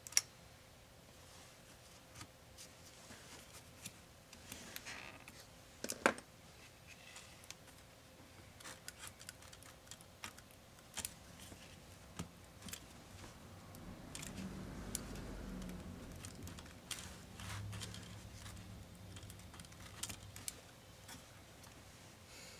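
Scattered light clicks and taps of parts being handled inside an opened MSI GS66 Stealth laptop, with sharper clicks right at the start and about six seconds in. A soft low rubbing comes around the middle.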